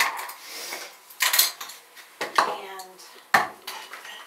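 Plastic hair-colour tools (a mixing bowl, bottles and tubes) being handled and set down on a sink counter, clattering in a series of sharp knocks, the loudest a little past three seconds in.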